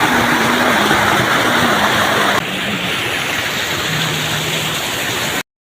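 Waterfall rushing loudly and steadily. About two and a half seconds in, the sound steps slightly quieter and duller, then cuts off suddenly near the end.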